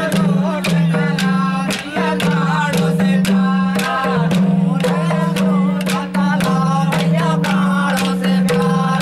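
Saila folk dance music: men singing a folk song with a hand drum beating and sharp wooden clacks of the dancers' sticks in a quick rhythm, over a steady low hum.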